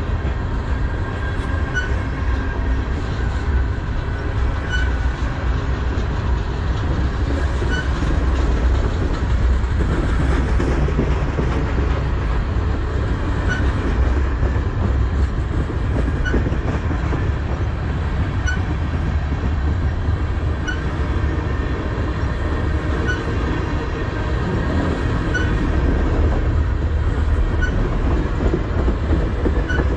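Freight train tank cars rolling past close by: a steady, loud rumble of steel wheels on rail, with short, high chirps from the wheels repeating every second or two.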